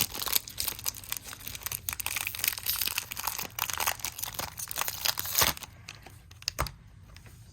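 Foil wrapper of a Pokémon card booster pack crinkling and tearing as it is opened, dying down after about five seconds.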